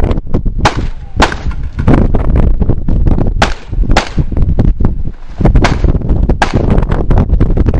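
A pistol fired in a string of sharp shots at irregular intervals, as in a practical shooting stage. Wind rumbles on the microphone underneath.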